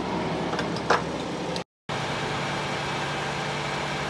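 Gilbarco Veeder-Root fuel dispenser running as E85 is pumped through the nozzle into a car's fuel tank: a steady hum, with a short click about a second in. The sound breaks off briefly just before the middle.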